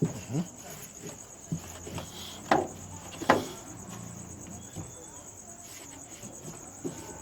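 A steady, high cricket trill in the background, with a few knocks and taps from the tail light unit being handled and wiped clean. The two loudest knocks come about two and a half and three and a half seconds in.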